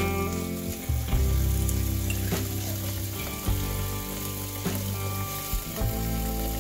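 Tap water running and splashing into glass jars in a sink, a steady hiss, with background music playing under it.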